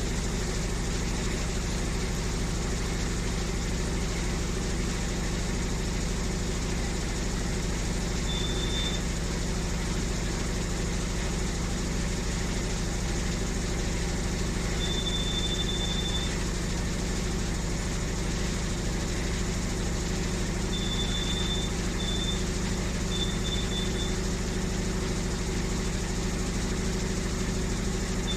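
Panasonic NA-F8AE9 top-loading washing machine spinning with a steady hum. A high-pitched squeal, like metal rubbing at high speed, breaks in intermittently as short chirps and longer squeals, several times in the second half. It is an abnormal noise in the spin cycle.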